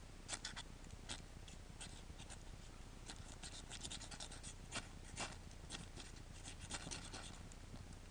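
Dry wood shavings and small split sticks being handled and laid onto a piece of bark: scattered light scratches and crackles at no steady pace.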